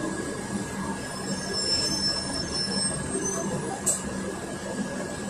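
Cabin noise inside a Volgabus 5270G2 city bus, with the steady hum of its Yuchai YC6L280N-52 compressed-natural-gas engine as it moves in traffic. Thin high-pitched squeals come through in the middle, and there is one sharp click near the end.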